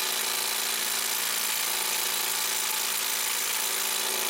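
DeWalt cordless impact driver with a 16 mm socket hammering steadily on a lawnmower blade bolt for about five seconds, then stopping; the bolt does not break loose.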